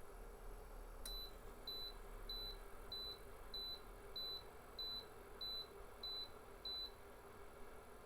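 Electric space heater's tip-over alarm beeping after the heater is laid on its side: about ten short high beeps, evenly spaced a little over half a second apart, then stopping, over a faint steady hum.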